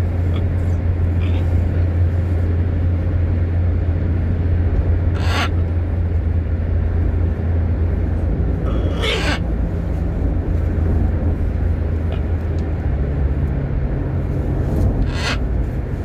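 A parrot gives three short, harsh squawks several seconds apart, over a steady loud low hum.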